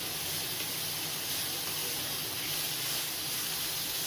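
Shredded cabbage, capsicum, carrot and peas sizzling steadily in a little hot oil in a wok as a spatula stirs them.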